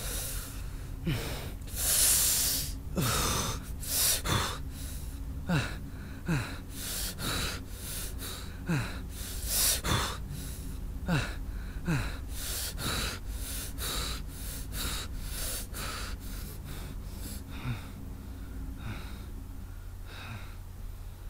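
A man breathing heavily in repeated loud gasps, agitated and distressed. The breaths grow quieter and sparser after about 17 seconds.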